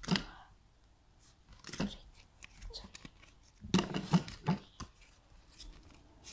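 Pokémon trading cards handled and shuffled on a tabletop: a few short rustles and taps of card against card and table, busiest a little under four seconds in.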